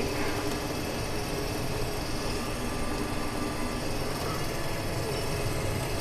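Corn combine harvester running steadily while harvesting, heard from inside its cab.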